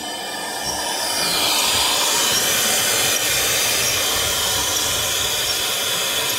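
CNC router's 4.5 kW HQD spindle running and routing into a wooden board: a steady hissing noise that grows louder over the first second or so, then holds.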